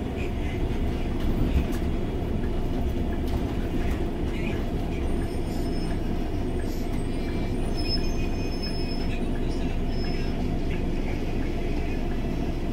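Inside a Scania OmniLink three-axle biodiesel bus on the move: the steady rumble of the engine and rolling noise in the passenger cabin. A few faint, short high-pitched squeaks come in about halfway through.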